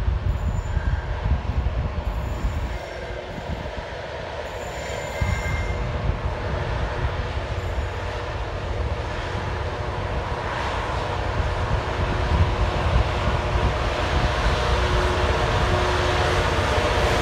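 Freightliner Class 66 diesel-electric locomotive, its two-stroke V12 diesel running under load, hauling a train of loaded hopper wagons on the approach, the rumble growing louder toward the end as it nears.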